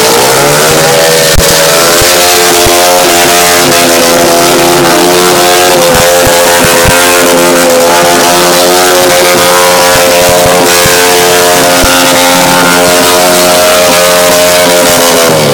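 Engine revved up and held at steady high revs, then dropping off right at the end; very loud.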